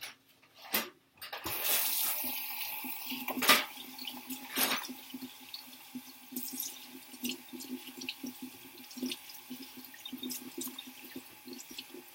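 Tap water running into a sink while hands are washed, starting about a second and a half in. The flow has a splashy crackle and two sharper knocks a few seconds in.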